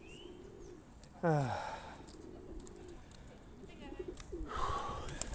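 Pigeons cooing, with one loud falling coo about a second in and softer low cooing around it. A few sharp clicks come near the end.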